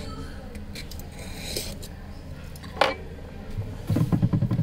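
Small clicks and taps of tools and parts on an opened smartphone, with one sharp click a little before three seconds in, over a steady low hum. Near the end a loud low rumble that pulses rapidly comes in and covers them.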